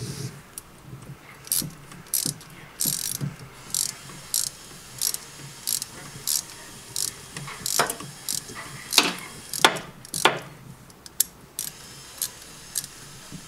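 Hand ratchet clicking in short strokes as it turns a thread tap into the hole drilled in a coolant pipe fitting, cutting threads for a pinning screw. The clicks come about one to two a second, with a few louder ones about two-thirds in.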